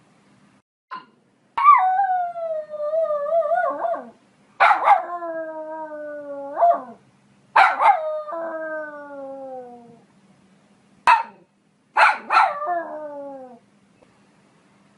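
Poodle howling: four long drawn-out calls that slide down in pitch, each about two seconds long, with a few short sharp barks in between.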